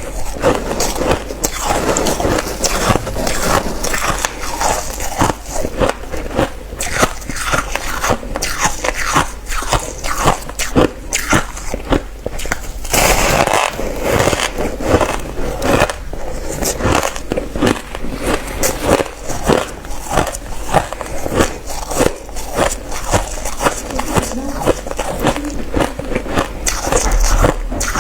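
Close-miked biting and chewing of reshaped crushed ice: dense, irregular crunches throughout, with a louder, hissier stretch about halfway through.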